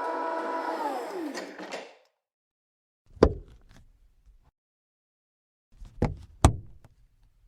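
A car's electric power-window motor humming steadily, then sliding down in pitch as it winds to a stop. After it, three sharp thumps from the car's door mechanisms: one about three seconds in and two in quick succession near the end.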